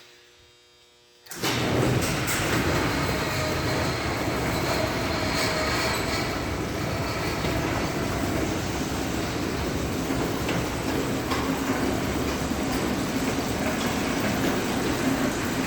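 Old commercial garage door operator running a door: a steady mechanical rumble and rattle of the drive and the door travelling, starting suddenly about a second in.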